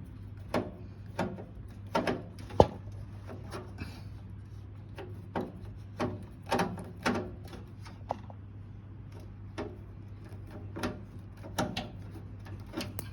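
Irregular clicks and knocks of a screwdriver working a screw out of a desktop computer's power supply unit, one sharper knock about two and a half seconds in, over a steady low hum.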